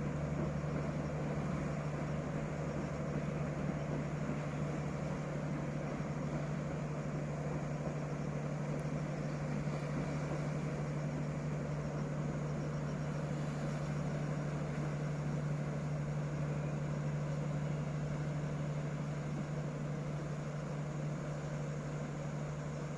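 Train hauled by a D19E diesel-electric locomotive running steadily, a constant low engine hum over even running noise.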